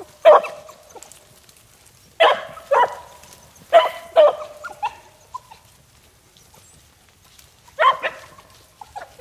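Beagle hounds baying while trailing a rabbit: a string of short bays, mostly in pairs about half a second apart, with a quiet stretch of a few seconds in the middle.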